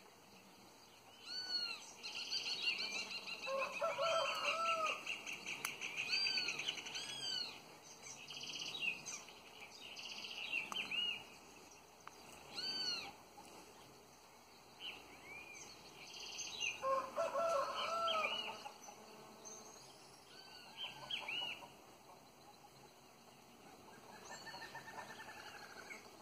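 Several wild birds chirping and calling in bursts of short, high, arched notes, including a fast trill. Two bouts of lower-pitched calls come a few seconds in and again past the middle.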